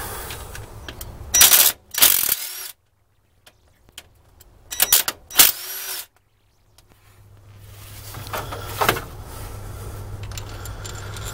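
Short bursts of metallic clatter from tools and parts being handled at the front of a 5.4L Triton V8 during timing chain removal: two bursts near the start and two more about five seconds in, followed by a low steady hum.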